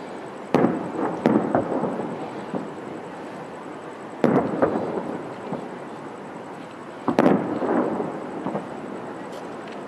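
Aerial firework shells bursting: four bangs, two close together about half a second and just over a second in, then one about four seconds in and one about seven seconds in, each trailing off in a long rumble.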